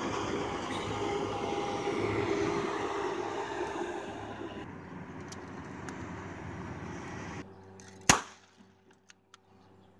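A steady rushing noise, then, about eight seconds in, a single sharp, loud bang as the toy revolver is fired, followed by a couple of faint ticks.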